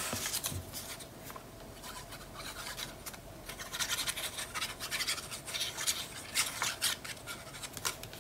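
Hands handling cardstock and patterned paper on a cutting mat: an irregular series of short scratchy rustles and rubs as the paper is smoothed, moved and glued.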